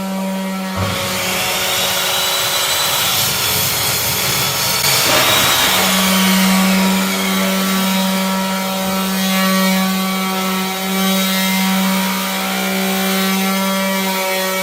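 Electric power tool running with a steady hum. It sounds noisier for the first five seconds or so, then settles into a steady note.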